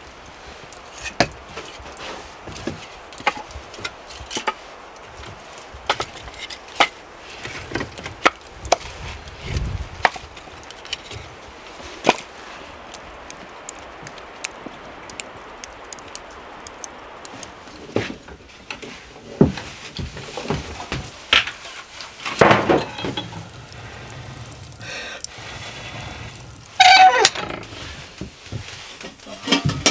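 Kitchen work: irregular knocks of chopping on a wooden board, about one a second, then a louder clatter of cookware near the end.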